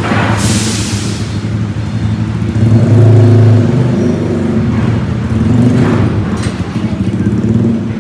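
Bus and truck engines running and pulling away as the vehicles drive off a ship, with the engine note swelling for a moment about three seconds in. A brief loud hiss comes about half a second in.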